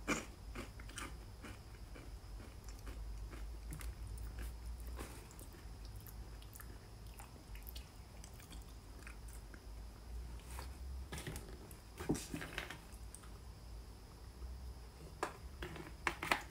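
A person crunching and chewing a mouthful of potato chips close to the microphone, with irregular crisp crunches.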